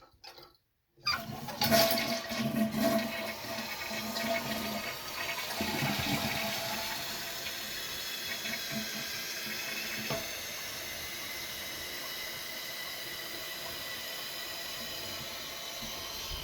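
Toilet flushing: a sudden rush of water starts about a second in and is loudest for the first few seconds, then settles into a steady hiss of running water.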